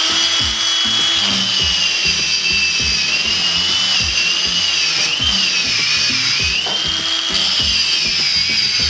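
Stark CAG 1800 cordless angle grinder running with a small wire brush scrubbing a steel angle bar. The motor's whine sags and wavers in pitch as the brush is pressed into the metal and eased off, over a scratchy hiss of wire on steel. It stops near the end.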